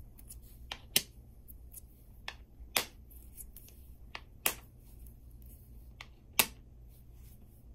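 Small disc magnets snapping together: four sharp clicks a second or two apart, each just after a lighter tick as the magnets close in.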